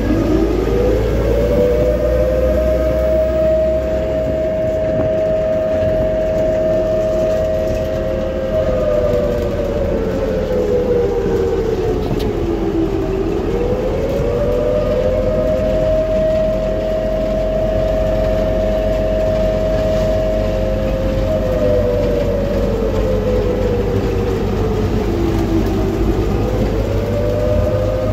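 A siren wailing in slow cycles: it winds up to a steady two-note tone, holds it for about eight seconds, sinks slowly and winds up again, twice, over a low rumble.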